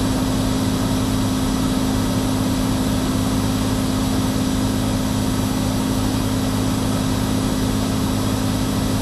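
Cirrus SR22's six-cylinder piston engine and propeller heard from the cockpit in cruise flight: a steady, unchanging drone with a constant low hum.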